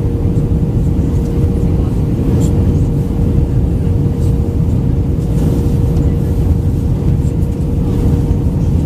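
Airbus A319-112 cabin noise in descent: a steady, deep rush of the CFM56 engines and airflow, with a constant hum-tone running through it.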